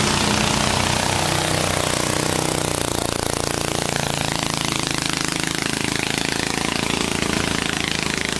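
Small wooden river boat's engine running steadily under way, a loud, even, rapid chugging.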